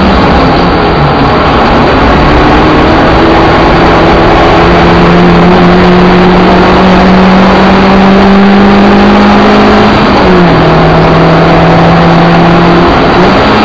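Suzuki Ignis Sport's four-cylinder engine pulling hard, heard loudly from inside the stripped cabin. Its pitch climbs slowly as the car gathers speed, drops sharply at an upshift about ten seconds in, then climbs again.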